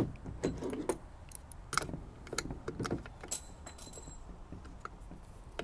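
Hand tools clicking and clinking against a plastic cord-grip bushing as its nut is tightened with pliers and a wrench: scattered light clicks, with a brief high metallic ring about three and a half seconds in.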